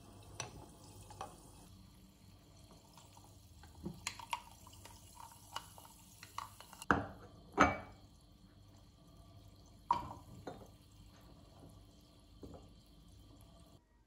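Wooden stirring sticks clinking and knocking against drinking glasses of sparkling water with fruit and mint, with liquid sloshing. The loudest knocks come about seven and ten seconds in, and a light hiss of bubbles runs under the first half.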